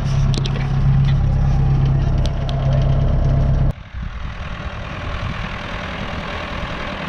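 Tractor engine running steadily with a strong low hum, a few light clicks over it; a little over halfway through the sound drops abruptly to a quieter engine running on.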